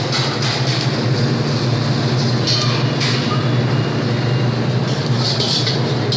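Steady loud drone of a commercial kitchen, the hum of exhaust hood fans and gas burners, with a few short clatters on top.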